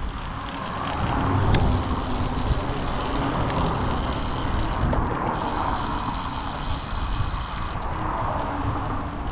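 Steady rushing wind on the microphone and a low road rumble from a road bicycle being ridden at speed.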